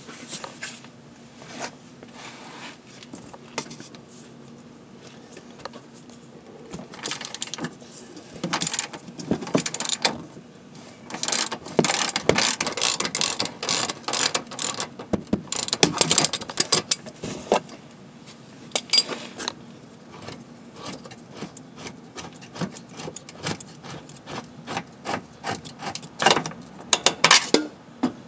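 Socket ratchet clicking in quick runs as the 15 mm upper shock-mount bolt is backed out, with quieter pauses between runs.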